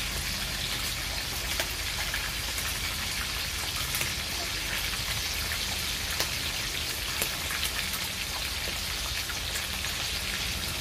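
Daing na bangus (split, marinated milkfish) frying in hot oil in a pan: a steady sizzle full of small crackling pops of spitting oil.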